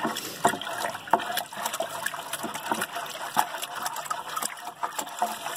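Warm tap water running in a steady stream into the primary fermenter bucket, splashing into the water already collected at the bottom.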